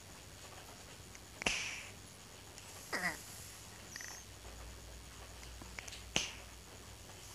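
A cat snoring with odd noises: a couple of sharp clicks, the first with a short hissing breath after it, and a squeaky sound about halfway that slides down in pitch.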